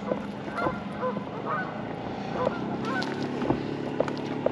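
Geese honking repeatedly in short calls, over a steady low hum that grows fuller about halfway through. A few sharp clicks come near the end.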